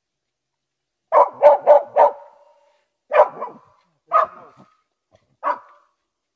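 Russian-European laika barking in a quick run of four barks, then a pair and two single barks, baying a raccoon dog cornered under fallen trees.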